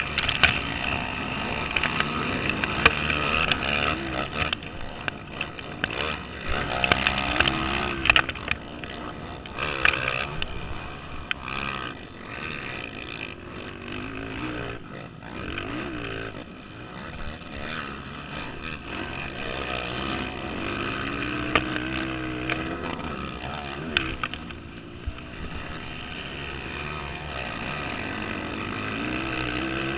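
Racing ATV engines revving hard, their pitch climbing and dropping again and again as the quads accelerate and back off, with several machines overlapping at times.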